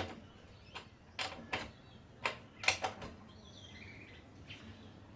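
Separate metallic clicks and knocks, unevenly spaced, from a socket wrench at work as a motorbike's rear axle nut is tightened.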